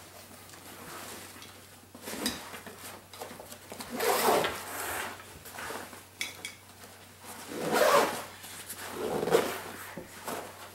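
Fabric of a Condor 3-day assault pack rustling and rubbing as it is handled and folded, in several swells of a second or so, with a few light clicks in between.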